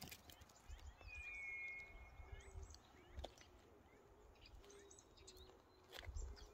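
Faint birdsong: a long thin whistle that dips slightly in pitch about a second in, with scattered short chirps, over low wind rumble on the microphone.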